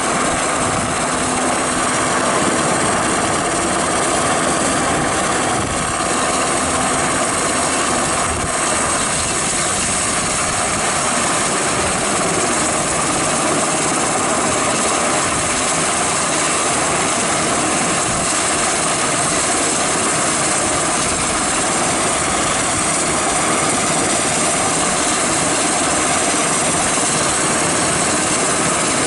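Sikorsky H-60 Seahawk-type naval helicopter's turbine engines and main rotor running steadily as it sets down on a ship's flight deck and stays on deck with rotors turning. A constant turbine whine over the rotor noise, with no change in level.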